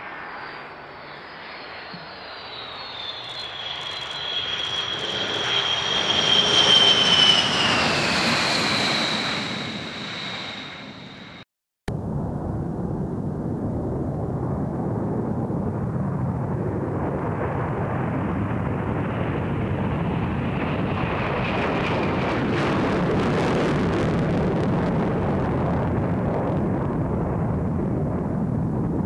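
B-1B Lancer's four F101 turbofans whining past on approach to land, the whine falling in pitch as the bomber goes by and loudest about seven seconds in. After a sudden cut, a steady loud jet roar follows as the bomber takes off.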